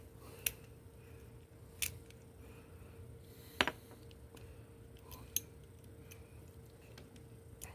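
Small clicks and taps of plastic and metal parts as a 12-volt cigarette-lighter plug is unscrewed and opened, about five sharp clicks a second or two apart over a faint steady hum.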